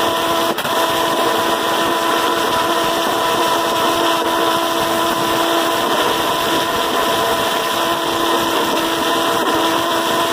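Tesla-valve pulse jet engine running steadily: a loud, rough, unbroken noise with a steady mid-pitched hum through it. It falters briefly about half a second in.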